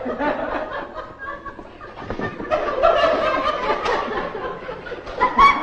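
People laughing and chuckling, getting louder toward the end.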